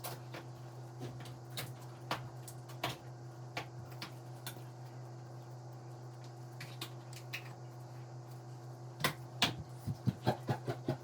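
Scattered light clicks and taps of a cookie cutter and cake pop dough being handled on a counter, with a quick cluster of sharper taps near the end, over a steady low electrical hum.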